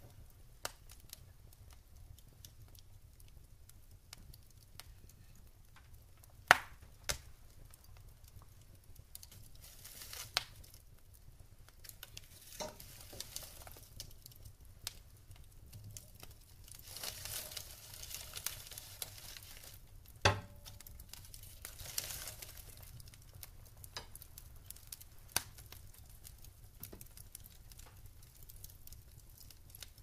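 Logs burning in a fireplace, crackling with scattered sharp pops. The loudest pops come about six and a half and about twenty seconds in, with stretches of soft hissing around the middle.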